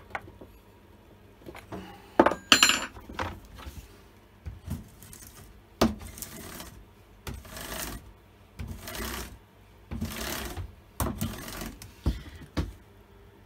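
Metal hand-tool clinks: a tubular box spanner on a chainsaw's bar nuts, then set down with a loud ringing clank. This is followed by a run of short metallic rattles, spaced about a second apart, as the saw and its chain are moved around.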